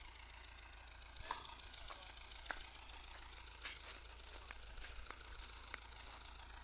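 Faint, steady low rumble of a distant farm tractor working the field, with scattered light clicks and ticks close by.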